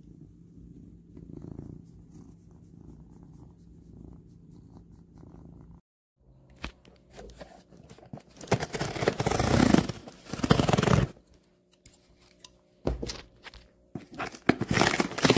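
A cat purring steadily, close to the microphone. After a cut, a cardboard shipping box is opened and handled, with two long stretches of loud tearing and scraping of cardboard and packaging.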